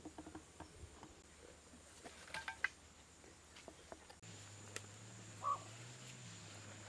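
Faint crackling of a small wood fire burning in a clay stove, with a few light clicks and pops, while a bird calls briefly a couple of times.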